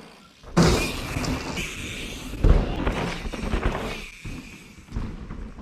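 Mountain bike riding hard on a dirt trail: tyres tearing and skidding through loose dirt, starting suddenly about half a second in, with a heavy thud about two and a half seconds in.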